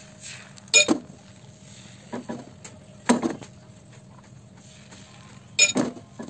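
Cookware clinking and knocking as batter is ladled into a nonstick frying pan and the pan is tilted to spread it: three sharp strikes, about a second in, about three seconds in and near the end, with lighter taps between.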